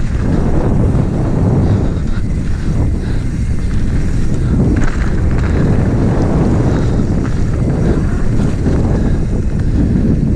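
Wind buffeting a helmet- or bike-mounted action camera's microphone as a mountain bike rolls fast down a dirt trail, with the tyres rumbling over the ground. The noise is loud and steady, heavy in the low end.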